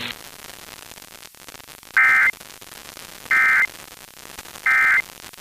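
NOAA Weather Radio's Emergency Alert System SAME end-of-message data bursts: three short, harsh buzzy chirps about a second apart, marking the end of the warning broadcast. Faint radio static hisses between them.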